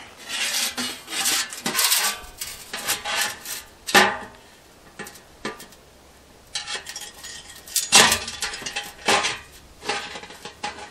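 Sheet-metal stovepipe and damper parts scraping and clinking as the damper is worked into place by hand. There are sharp metal knocks about four and eight seconds in, and a quieter pause between them.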